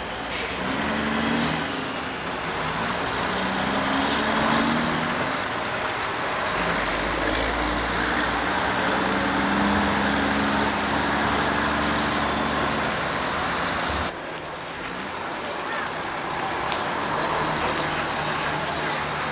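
Heavy diesel truck engine running at low speed and revving up and down as the truck manoeuvres, with two short air hisses from the air brakes near the start.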